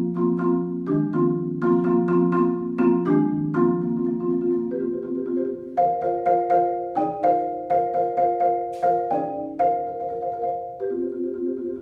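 Solo marimba played with four yarn mallets: struck chords and melody notes ring on in the middle register, about two strikes a second, and the line moves higher about halfway through.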